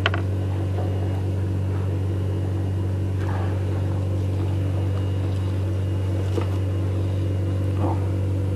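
A small engine running steadily with a low, even hum. A brief knock comes right at the start.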